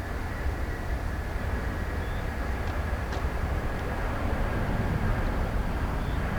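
Jet airliner engines at a distance: a steady rumble with a faint high whine, slowly growing louder.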